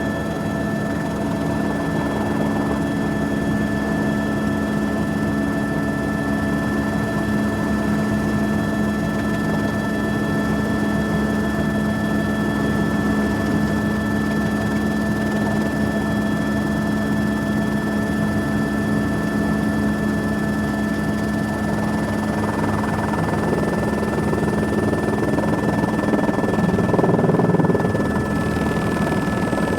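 Helicopter cabin noise: a steady drone of engine and rotor with a high, even whine over it. The sound swells and grows rougher for a few seconds near the end, then settles back.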